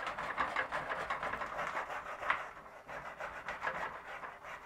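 Hand wire brush scrubbing softened paint off a sheet-steel panel in rapid back-and-forth scratching strokes. The paint has been soaked in a homemade brake fluid and acetone stripper and is not coming off easily.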